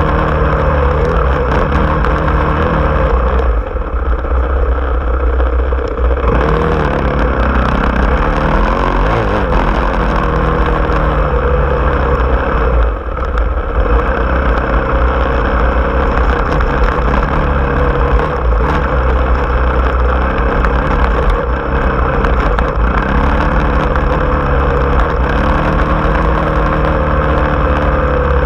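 Engine of a small off-road vehicle running steadily as it drives, its pitch rising and falling with the throttle. It eases off briefly about 4 seconds in and again around 13 seconds in.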